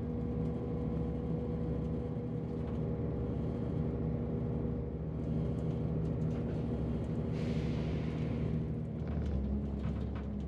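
Class 168 diesel multiple unit heard from inside the carriage as it pulls away: the steady hum of its underfloor diesel engine over the low rumble of the running gear. A brief hiss comes about seven seconds in.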